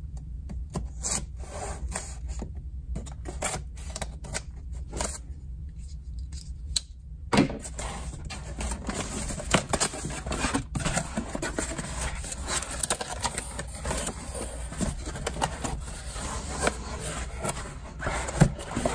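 A folding knife slicing through packing tape on a cardboard box in a run of short, sharp scrapes and clicks. After about seven seconds it gives way to continuous scraping and rustling as the cardboard flaps are pulled open and egg-crate foam packing is handled, with one sharp knock near the end.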